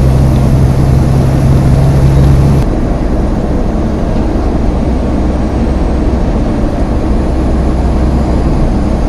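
Loaded semi-truck's diesel engine heard from inside the cab, pulling in high range with a steady low drone. About two and a half seconds in, the deep engine note drops away suddenly and quieter engine and road noise carries on.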